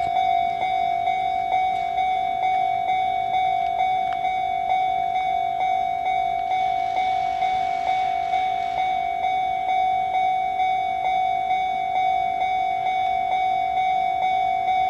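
Japanese railway level-crossing alarm ringing, a steady electronic bell tone struck a little over twice a second. A faint rushing noise swells and fades in the middle.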